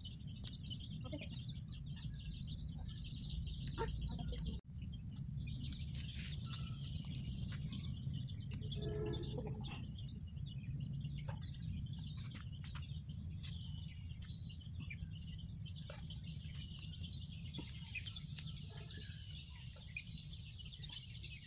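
Birds calling in the background: a short high chirp repeated about once a second, and one lower call like a hen's cluck about nine seconds in, over a steady low rumble and, at times, a steady high hiss.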